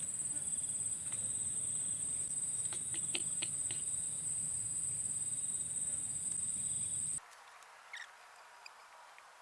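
A steady, high-pitched insect trill, like a cricket's, held without a break and cutting off suddenly about seven seconds in. One of the anglers takes it for a snake at its nest, while another doubts a snake sounds like that.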